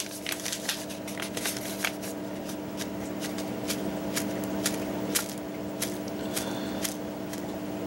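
Hands handling paper and a plastic zip bag: light crinkles and quick clicks scattered throughout, over a steady background hum.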